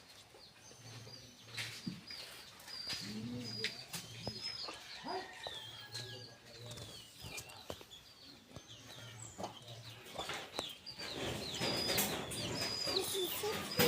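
Birds chirping: many short, high, falling chirps throughout, busier and louder near the end, over a low on-off pulsing hum and a few soft knocks.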